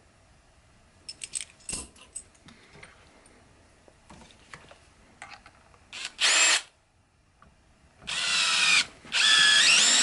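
Cordless drill driving a screw into the cast metal core of a padlock. It gives a short burst about six seconds in, then two longer runs near the end, and its whine drops in pitch as the screw bites into the metal.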